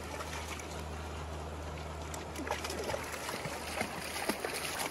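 Shallow creek water trickling over rocks, with small splashes from hands moving at the water's surface in the second half. A steady low hum runs underneath.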